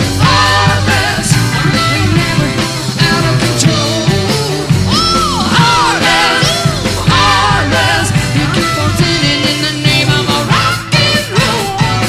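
Live 1970s hard rock: a woman's lead vocal singing over a full rock band with a steady bass and drums.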